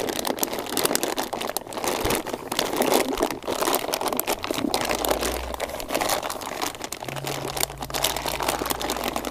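A heavy-duty plastic brining bag crinkling and crackling without a break as hands press and squeeze it around a turkey in brine, working the air out.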